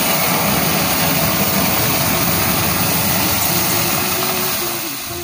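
Loud sizzling hiss as boiled red lentil dal is poured into a hot aluminium kadai of oil and fried jute leaves, easing off slightly near the end.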